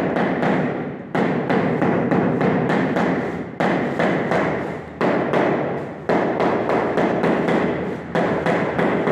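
Tiles being tapped down into their bed with a mallet: a rapid run of thuds, several a second, with a harder strike every second or two that rings on briefly in the bare room.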